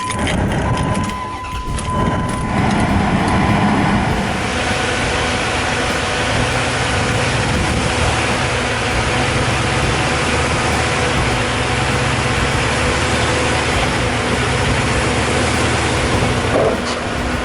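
Dodge Dakota's 4.7-litre V8 engine running steadily, with a high steady tone over the first two seconds or so.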